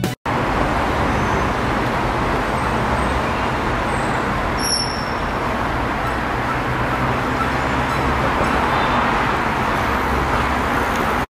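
City street traffic noise: a steady wash of passing vehicles, with a few brief high-pitched chirps about halfway through.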